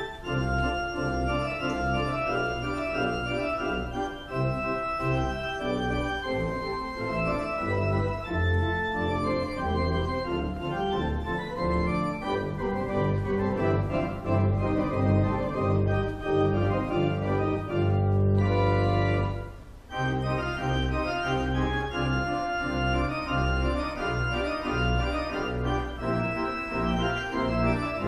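Church pipe organ playing, a steady flow of held chords and moving notes, with a short break about twenty seconds in before the music goes on.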